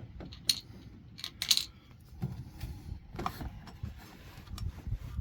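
Scattered light clicks, taps and small rattles of parts being handled while an O-ring is greased and fitted onto a replacement water-heater pressure relief valve, with one sharper click about one and a half seconds in.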